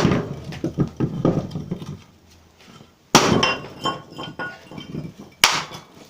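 A big hammer striking a cast iron sewer pipe at its lead-sealed joint to bust it apart, one heavy blow at the start and two more about three and five and a half seconds in. Each blow is followed by clinking and rattling of broken cast iron.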